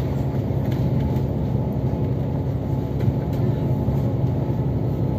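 Steady low rumble of engine and road noise heard from inside a vehicle cruising along a highway.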